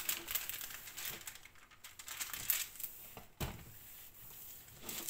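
Rolled diamond painting canvas with its plastic cover film crinkling and crackling as hands press and smooth it flat on a table, with a soft thump about three and a half seconds in.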